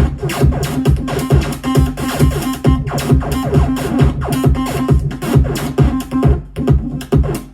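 Modular synthesizer of Make Noise modules sequenced by a Five12 Vector, playing techno-like electronic music: a steady beat of low thumps under a repeating pitched synth pattern.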